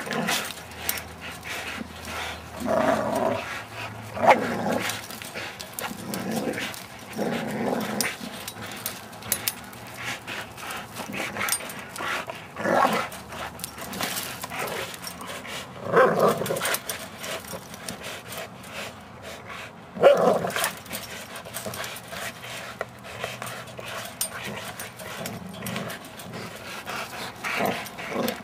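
American bulldogs growling in rough bursts every few seconds while gripping and tugging a spring pole rope in their jaws, with scattered light clicks and rattles between the growls.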